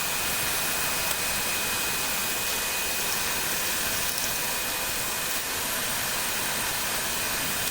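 Handheld electric dust cleaner running steadily with a high motor whine over a rush of air, blowing dust out of the printer's opened insides.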